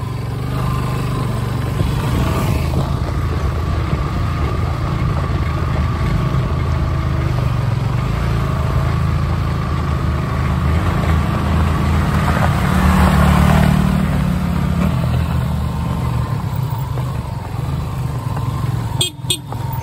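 Small single-cylinder motorcycle engine running under way on a rough dirt track, growing louder about twelve seconds in and then easing off. The sound breaks off briefly near the end.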